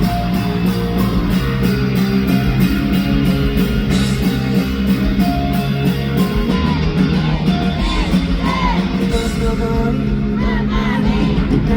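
Live rock band playing a song at full volume, with drums keeping a steady beat, guitars and a sung lead vocal.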